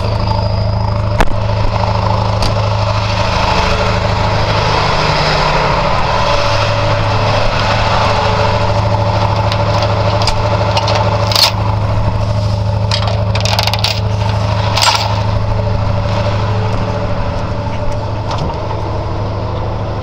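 Flatbed tow truck's engine idling steadily, with a few sharp metallic clinks from tie-down chains and straps being handled about halfway through.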